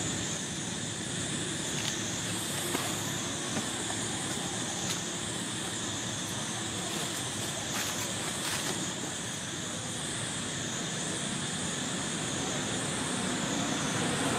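Steady outdoor background noise: a continuous hiss and low rumble with a high-pitched buzz that swells and fades about every second and a half, and a few faint clicks.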